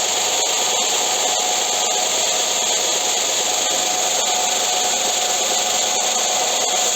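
Belt sander running steadily while the edge of a sanding block is rolled against the moving belt to round over its sharp edge.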